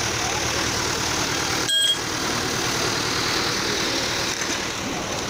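FIAT 640 tractor's diesel engine idling steadily, with a short high-pitched blip a little under two seconds in.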